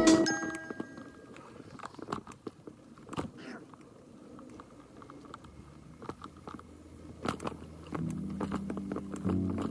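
Mountain bike tyres crunching and clicking irregularly over a dirt trail strewn with leaves and twigs, with rattles from the bike. Music fades out at the start and comes back near the end.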